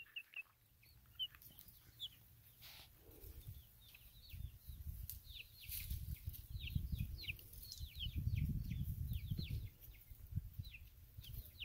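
Young chicken giving soft, short chirps that slide downward, a few a second, more often after the first few seconds. Under them runs a low muffled rustle from the hand stroking her feathers against the microphone.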